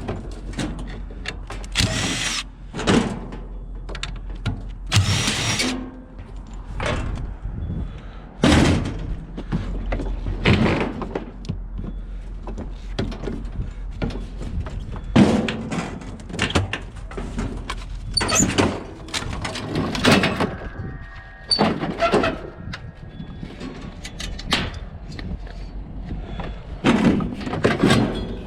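Scrap metal being handled and thrown: a string of irregular clanks, bangs and clattering, some with a short metallic ring, over a steady low hum.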